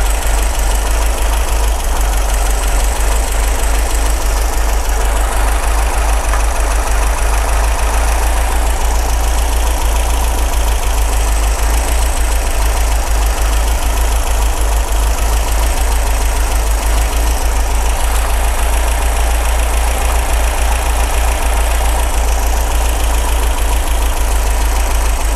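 MGB's 1.8-litre B-series four-cylinder engine idling steadily on twin SU carburetors while the carburetors are being balanced.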